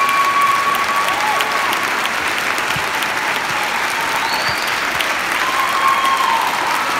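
Audience and band applauding: dense, steady clapping.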